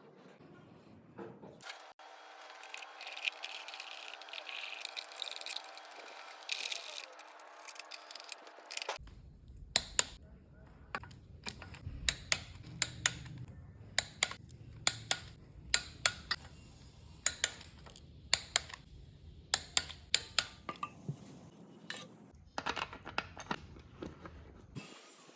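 Metal tools and engine parts clinking and tapping: a faint hiss at first, then a run of sharp metallic clicks, about one or two a second.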